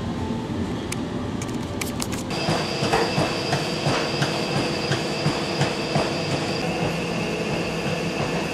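Rail vehicle running: a steady rumble, joined about two seconds in by a high, steady wheel squeal and regular clicking about three times a second.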